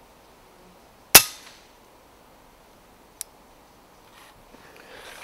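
FX Impact MkII pre-charged pneumatic air rifle firing a single shot about a second in, a sharp crack with a short decaying tail. A smaller sharp click follows about two seconds later, then faint rustling near the end.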